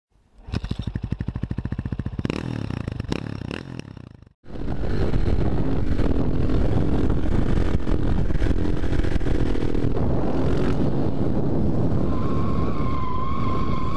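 KTM supermoto motorcycle engine running with a fast, uneven pulsing beat that cuts off abruptly after about four seconds. Then the bike is ridden along, with steady engine and wind noise on a helmet-mounted camera and a steady high whine joining near the end.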